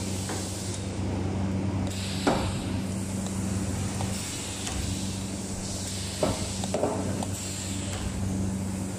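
Resistance seam welder's copper wheel electrode rolling along the seam of a stainless steel water tank's end cover, welding it to the body: a steady electric hum with a hiss that swells and fades. Three sharp metallic knocks come about two, six and seven seconds in.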